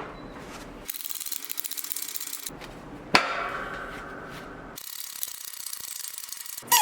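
Hand-tool work on metal in short cut-together clips: a stretch of rapid clicking, then a sharp metal clank about three seconds in that rings briefly and fades, with scraping and rubbing between.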